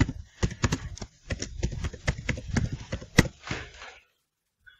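Typing on a computer keyboard: a fast, irregular run of key clicks, one stronger click a little after three seconds in. It stops abruptly about four seconds in.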